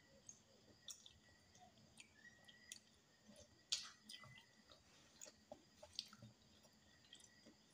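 Faint close-up eating sounds: chewing, with scattered small clicks of a metal spoon against a glass bowl and of eggshell being peeled. The loudest click comes a little before the middle.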